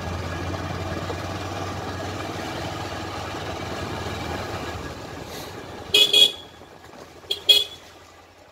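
A vehicle horn beeps in two quick pairs about a second and a half apart. Under it, a steady vehicle running noise fades out.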